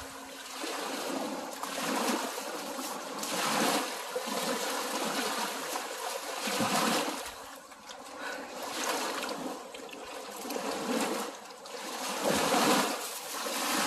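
Creek water running and splashing over rocks, a steady rush that rises and falls every few seconds.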